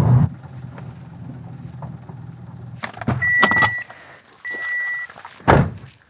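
Parked car: a low engine hum stops a little past halfway, with a few clicks, and the car gives two short, steady, high warning beeps. A loud thump comes near the end.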